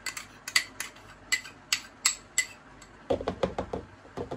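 Spoon tapping and scraping a ceramic ramekin to knock ice cream out into a blender bottle: a string of sharp, ringing clicks for about three seconds, then a quicker run of duller knocks.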